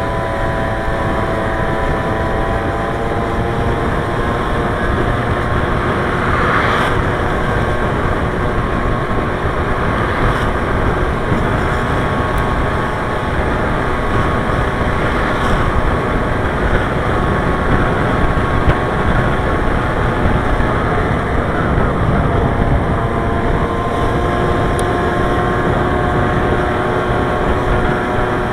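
Motor vehicle driving along a city street: steady road and wind noise with an engine hum whose pitch drifts slowly as speed changes.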